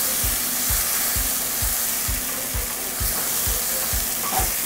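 Beef, tomato and onion sizzling steadily in a wok while being stirred, with soy sauce just added and worked into the tomatoes.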